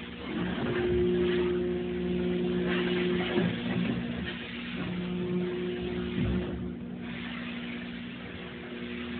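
Van Dorn 400HT injection moulding machine's hydraulic pump and motor running with a steady hum. The pitch rises twice under load, from about half a second in to three and a half seconds and again from about five to six seconds, each time ending with a short clunk.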